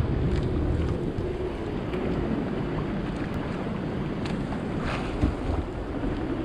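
Small wooden fishing boat under way: the steady hum of its engine, with wind buffeting the microphone and water washing against the hull.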